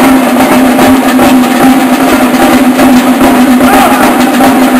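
Procession drums of the Candelieri beating loudly and without a break, over a steady hum.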